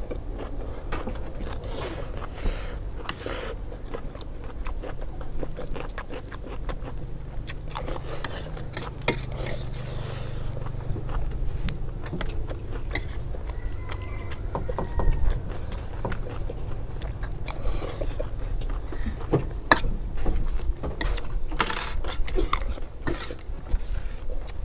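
Metal spoons scraping and clinking against metal serving trays as two people hurriedly scoop fried rice, with chewing in between. The clinks come irregularly throughout, over a low steady rumble.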